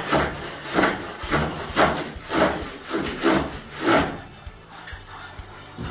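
Hand rasp with a replaceable blade scraping back and forth along the cut edge of a plaster ceiling to smooth it, about two strokes a second, stopping a little after four seconds in.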